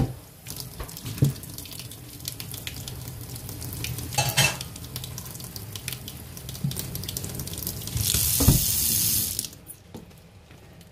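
Water from a pot of boiled potatoes being drained off in a sink, with clinks and knocks of the pot. A louder rush of running water comes about eight seconds in and stops sharply a second and a half later.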